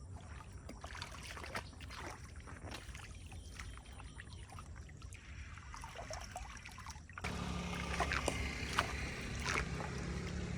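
Floodwater trickling and sloshing as it drains, with scattered drips. About seven seconds in the sound cuts to a louder, fuller rush of water over a steady low hum.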